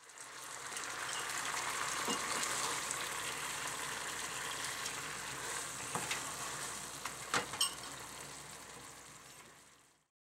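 Cubes of firm tofu and sliced long green onion sizzling in a frying pan of bubbling dashi sauce: a steady sizzle that fades in at the start and fades out near the end, with a few light clicks about six to seven and a half seconds in.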